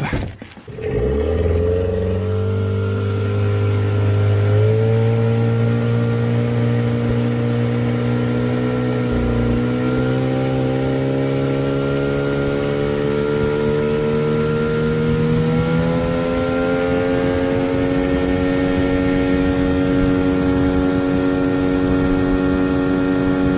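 Allfa 9.8 hp outboard motor pushing an inflatable RIB under way. It picks up within the first second and then runs hard and steadily, its pitch creeping higher as the boat gains speed.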